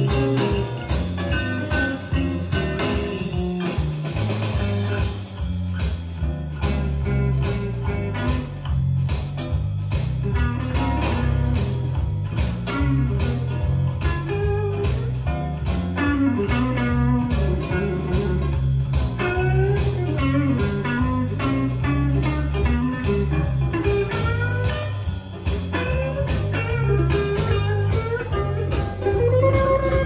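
Blues music played back from a cassette tape on an Aiwa 3500 three-head cassette deck: guitar lines over bass with a steady beat.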